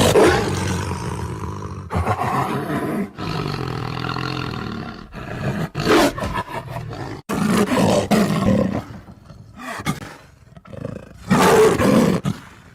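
Tiger roaring and growling in a series of rough calls with short breaks between them. The loudest roars come near the start and again near the end.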